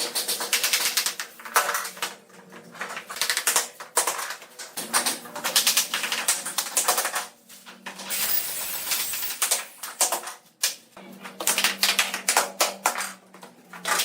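Rapid, irregular clicking and knocking from hand work on bamboo pieces, with a brief scraping hiss about eight seconds in.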